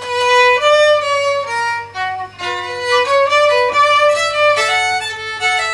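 A fiddle playing a solo melody, one note at a time, with notes changing several times a second.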